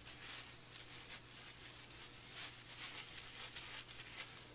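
Faint rustling and crinkling of a clear plastic piping bag being handled and squeezed, over a low steady hum.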